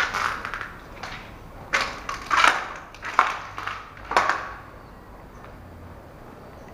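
Footsteps scuffing and crunching over broken debris on a concrete floor: about six gritty steps in the first four and a half seconds, then they stop.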